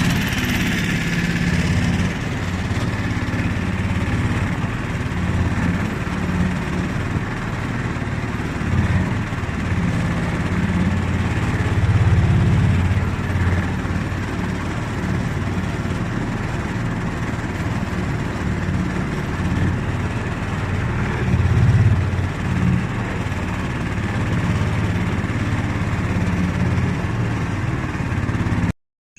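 A steady engine running with a low rumble, cutting off abruptly near the end.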